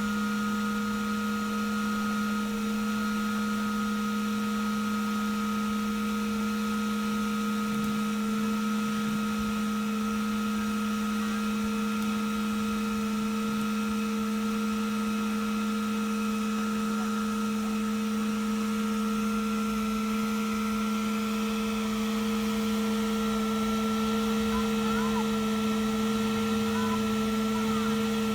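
Bee vacuum running with a steady droning hum of a few fixed tones, its motor drawing the swarm of honey bees gently into the collection box.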